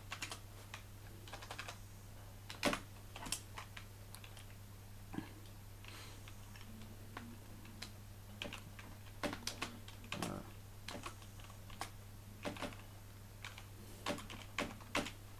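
Typing on a Polaroid wired USB keyboard with soft-touch keys: irregular key clicks, some in quick runs, with pauses between, over a steady low electrical hum.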